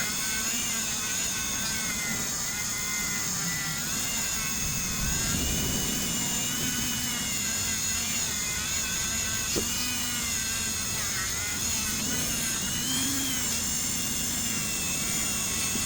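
Small high-speed rotary polishing tool running steadily, buffing a copper-plated pendant with red rouge compound; its whine wavers slightly in pitch.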